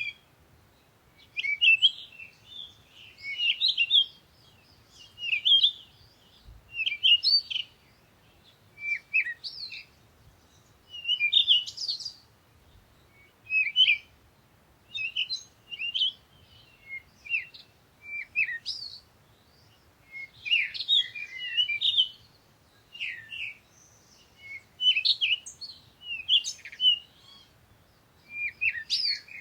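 Small songbirds chirping and singing in short, high phrases, one burst every second or two with brief pauses between, over a faint low background hum.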